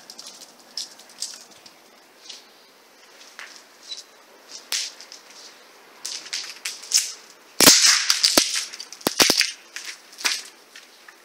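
Footsteps crunching over debris on a bare floor: scattered sharp clicks and cracks, with a cluster of loud cracks about two-thirds of the way in.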